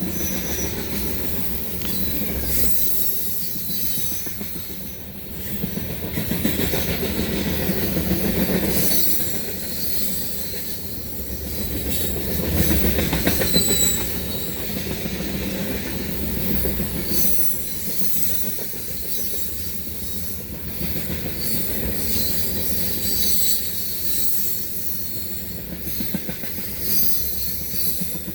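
CSX freight train rolling past on the rails: a low rumble that swells and fades, with high, thin wheel squeal throughout.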